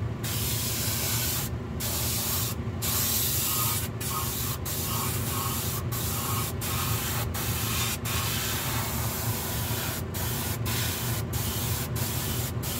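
Harbor Freight spray gun hissing steadily as it sprays water-based paint in light coats, the hiss breaking off for an instant about a dozen times. A steady low hum runs underneath.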